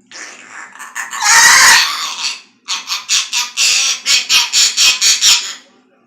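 Pet parrot screeching loudly, then a rapid run of short harsh squawks, about four a second.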